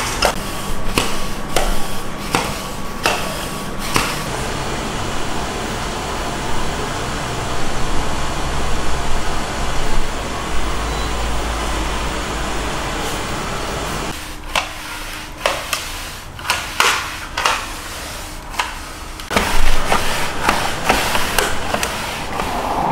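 Reusable pet-hair roller worked back and forth over a fabric sofa, making runs of quick clicking, rasping strokes. Through the middle stretch there is a steady hiss with a low rumble instead.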